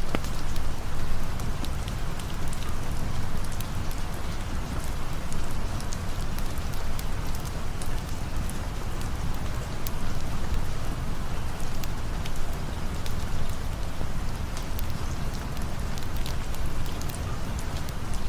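Steady rain falling, with scattered sharp ticks throughout.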